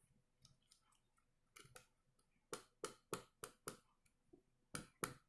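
Fingers tapping on the mesh grille of a Q7 karaoke microphone: a string of light, sharp taps starting about one and a half seconds in, about three a second in the middle.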